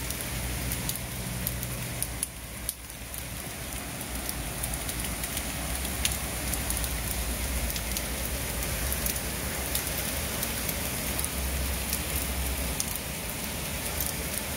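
Heavy rain pouring steadily, a constant hiss with many scattered sharp ticks of drops striking near by and a low rumble underneath.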